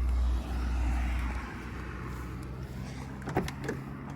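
A low rumble that fades about a second and a half in, then a few sharp clicks near the end as a car's door latch and handle are worked.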